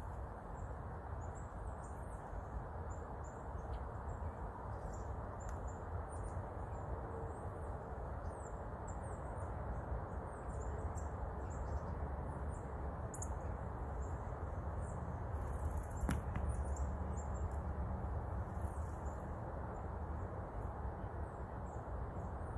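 Outdoor woodland ambience: a steady low rumble with many faint, short, high-pitched chirps scattered through it.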